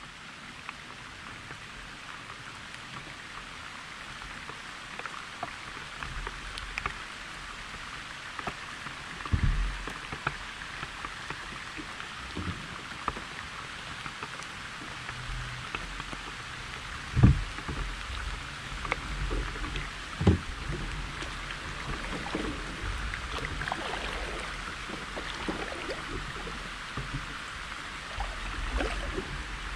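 Rain pattering steadily on the lake water, with a few dull thumps, the loudest just past halfway.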